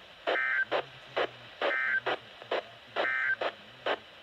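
Three short bursts of Emergency Alert System digital data tones over a hissy radio feed, each about a third of a second long and about 1.3 s apart: the end-of-message code that closes an alert. Regular clicks of interference come through about twice a second.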